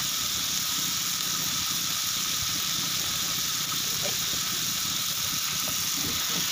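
Chopped octopus and shellfish sizzling in an aluminium wok: a steady frying hiss. Near the end, liquid is poured into the pan.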